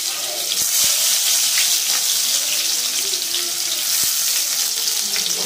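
Chopped onions frying in hot oil in a kadai, with tempered mustard and cumin seeds: a steady, loud sizzle with scattered small crackles.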